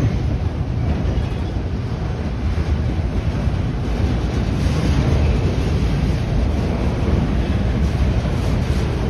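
Freight train's autorack cars rolling slowly past, a steady rumble of steel wheels on the rails.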